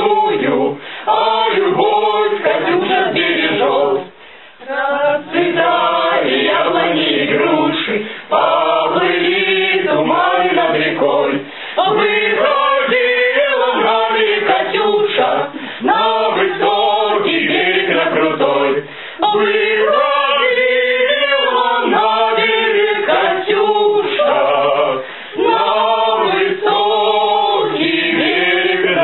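A mixed group of young men and women singing a Russian song together, phrase after phrase, with brief pauses for breath between lines.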